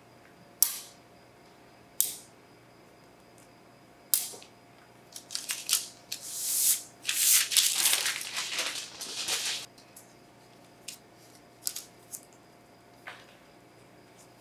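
Small metal magnets clicking as they are pulled off a metal baking sheet and gathered up, in sharp single clicks, then a few seconds of dense rustling and clinking from about five to ten seconds in, ending with a few light ticks.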